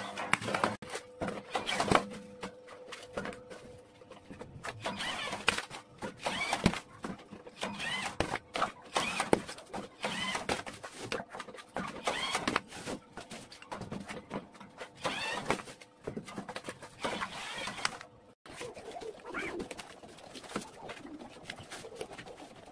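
Irregular knocks and clatter of boards being handled and fed through a manual roller press, with a bird chirping repeatedly every few seconds.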